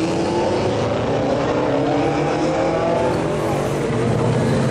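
A modified car's engine and exhaust running loudly, its note climbing as it accelerates.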